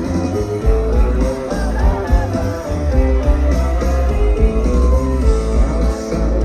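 A live rock band playing loud through a PA system, with an electric guitar riff over a heavy bass and drums.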